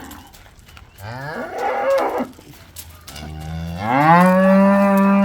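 Cattle bawling: a shorter moo about a second in, then a long, loud moo from about three seconds in that rises in pitch and then holds steady.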